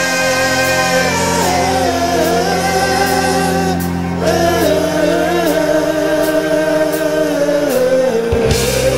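Soundtrack music: a singing voice holds long, slightly wavering notes over a steady low drone.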